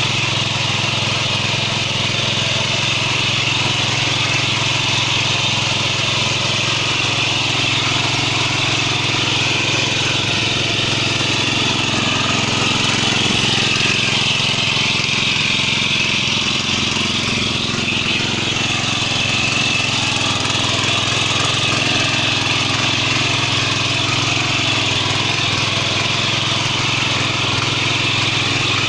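Maijo M700 ECO 7 hp petrol power weeder running steadily under load, its engine working as the rotary tines churn through the soil.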